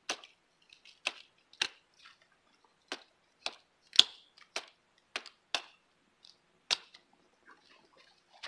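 A Condor Bushlore knife chopping small twigs off a wooden ridgepole: about ten sharp knocks at an uneven pace, the loudest about four seconds in.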